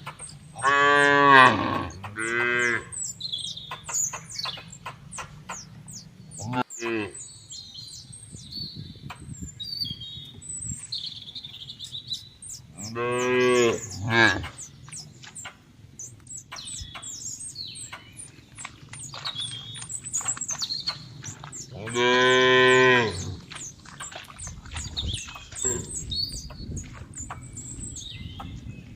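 Cattle mooing several times, with long deep calls near the start, about halfway through and about three quarters through, and a short one at about seven seconds.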